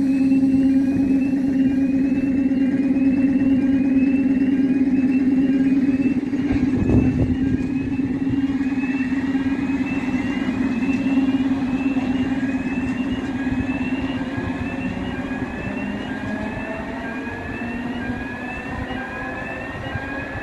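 ER9Tm electric multiple unit pulling away from the platform: a steady low electrical hum with a high whine that rises over and over, and one thump about seven seconds in. The sound fades over the second half as the train moves off.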